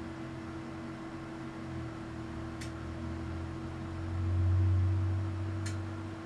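Low electrical hum from the high-voltage AC test setup, with a steady higher tone above it. About two-thirds of the way in, the hum swells louder for a second or so as the applied waveform jumps to nearly 300 V, then settles back. Two faint ticks, one near the middle and one near the end.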